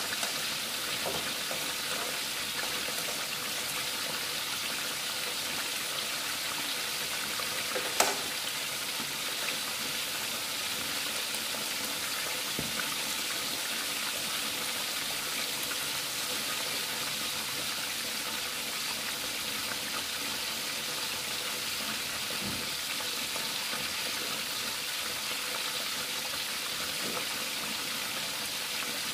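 A whole salted tilapia frying in hot oil in a pan: a steady sizzle, with one sharp pop of spattering oil about eight seconds in.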